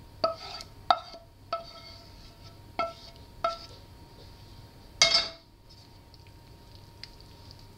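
Wooden spoon knocking and scraping against a metal frying pan while food is scraped out of it, the pan ringing briefly with each of about five knocks. About five seconds in comes a louder clatter as the pan is set down on a gas hob's grate.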